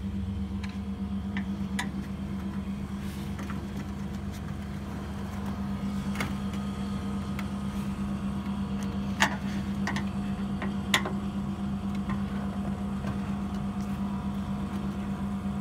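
Steady low machine hum, with a few sharp clicks on top, the two loudest about nine and eleven seconds in.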